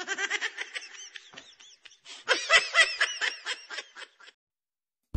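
High-pitched laughter in two bouts, a quick string of 'ha' pulses, the second bout louder; it stops a little over four seconds in.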